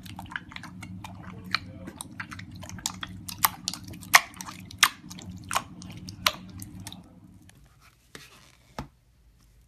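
Hand squeezing and kneading thick, foamy slime: a run of sticky pops and crackles over a steady low hum. It drops away about three-quarters of the way through, leaving two soft clicks as a plastic slime tub is handled.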